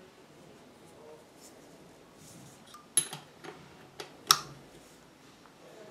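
Four sharp metallic clicks and clinks about halfway through, spread over just over a second, from metal parts being handled at the needle and presser-foot area of a Pfaff 1245 industrial sewing machine. The first and last clicks are the loudest and ring briefly.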